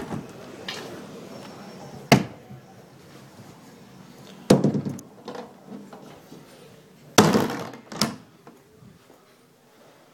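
A door being handled and shut: a sharp knock about two seconds in, then two heavier, longer thuds around four and a half and seven seconds in, and a smaller knock just after.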